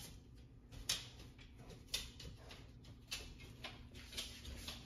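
Sharp ticks at about one a second over a faint steady hum.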